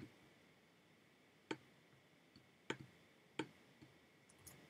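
Near silence with about four faint, sharp clicks a second or so apart, made by someone working a computer.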